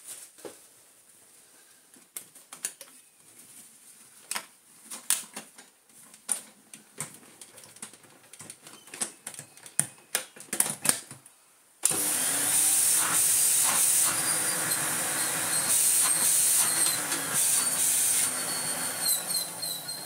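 Plastic clicks and knocks as the lid of an Electrolux Turbomatic Z380 canister vacuum is closed and latched over a new bag. About twelve seconds in, the vacuum's motor starts abruptly and runs steadily with a high-pitched whine.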